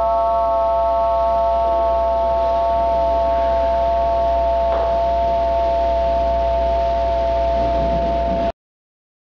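A held, bell-like chord of several steady tones over a low hum, cutting off abruptly about eight and a half seconds in.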